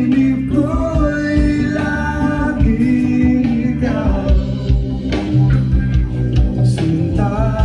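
A Tagalog song, with singing over backing music, playing loudly through a JBL PartyBox 310 portable Bluetooth party speaker.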